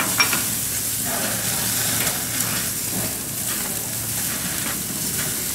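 Buttered black grouper fillets sizzling steadily on a hot grill over high flames, with a light crackle as the fat hits the heat.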